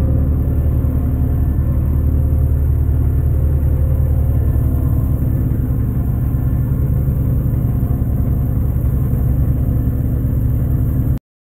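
New Holland 3630 tractor's diesel engine running steadily under load while it pulls a straw reaper through stubble. The sound cuts off abruptly near the end.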